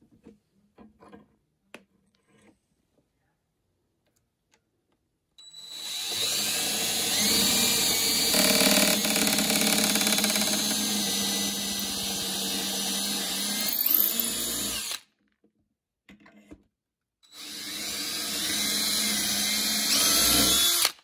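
Cordless drill boring two handle holes through a cabinet door through a drilling jig's guides: one long run of about nine seconds, a short pause, then a second run of about four seconds. A few faint clicks come before the drilling starts.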